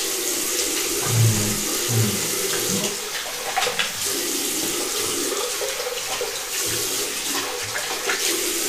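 Bathroom tap running steadily into a sink, with irregular splashing as water is scooped onto the face to rinse it.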